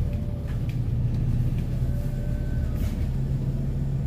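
Double-decker bus riding through city traffic, heard from on board: a steady low engine hum over road rumble.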